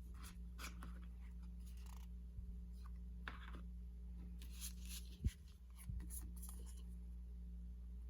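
Hands handling a perfume box and its packaging: short, scattered scraping and rustling sounds, with one sharp knock a little past halfway, over a steady low hum.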